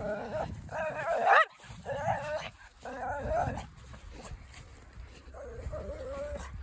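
Small Pekingese–Chihuahua mix dog giving drawn-out, wavering growly whines, four in quick succession and then a longer one near the end. These are play-soliciting noises aimed at another dog.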